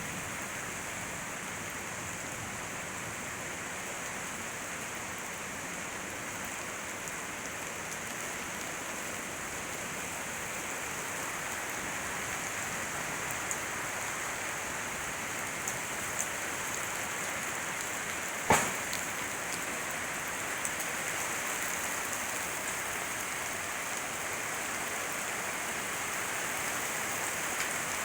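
Heavy rain falling steadily, an even hiss, with a single sharp knock about two-thirds of the way through.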